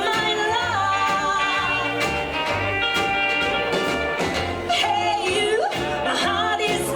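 A live rockabilly band playing, with bass notes stepping in a steady rhythm under a sliding melody line.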